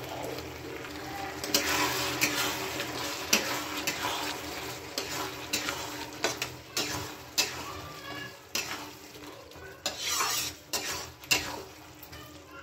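A spatula scraping and clacking against a wok as onions, capsicum and sauce are stirred, with irregular strokes over a steady sizzle of frying.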